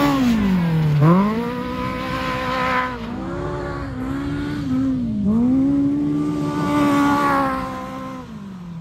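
Off-road vehicle engine revving up and down. Its pitch drops sharply about a second in and climbs back, dips briefly twice more, runs high for a while, then falls away near the end.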